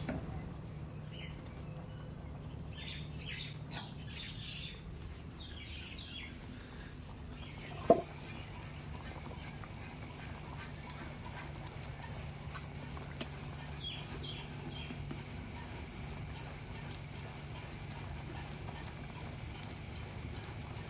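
Small birds chirping over a low steady hum for the first several seconds, then a single sharp knock about eight seconds in. After that, duck curry simmering in a pan over a wood fire, with faint ticks and crackles.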